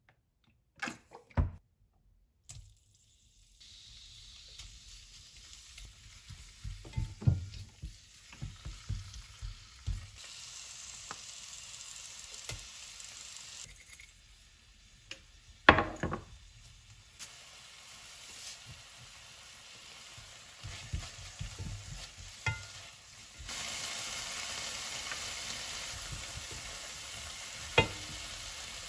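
Chopped kimchi sizzling as it stir-fries in oil in a frying pan, with a spatula stirring and now and then knocking against the pan. The sizzle gets louder about three-quarters of the way through.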